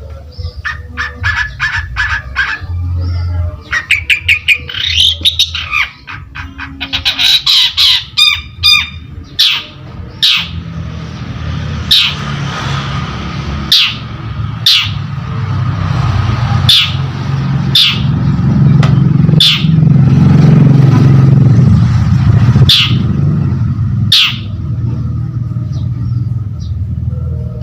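Long-tailed shrike (cendet) singing: rapid chattering phrases for the first nine seconds or so, then a run of sharp, short calls about one a second. A low steady rumble lies underneath and swells around the middle.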